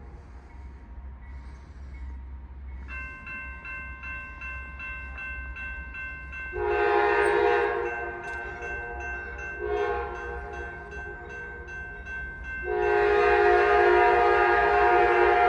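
Freight locomotive air horn blowing for a grade crossing: a long blast about six seconds in, a shorter one near ten seconds, then a long blast held to the end. Underneath, a crossing warning bell starts ringing steadily about three seconds in.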